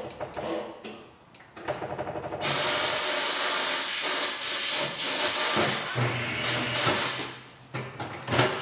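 Corghi Artiglio Master touchless tire changing machine working on an aftermarket Porsche wheel to break the tire bead. A mechanical rattle starts about a second and a half in, followed by loud, steady hissing of air for several seconds, then further machine noise with a low hum.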